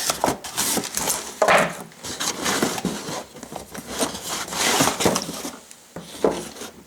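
Packaging being handled while unboxing: irregular rustling and scraping with knocks and clicks, the loudest about one and a half seconds in and again around four to five seconds.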